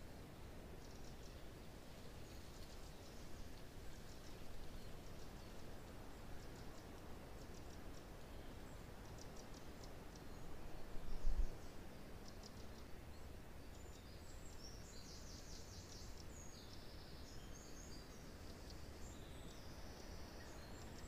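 Wind rushing through pine trees as a steady hiss, with small forest birds chirping and trilling on and off. A brief low thump comes about eleven seconds in.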